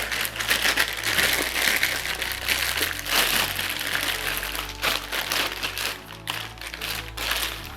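A large plastic bag crinkling and rustling, with scattered sharp crackles, as a boxed replica sword is slid out of it and unwrapped. Background music plays underneath.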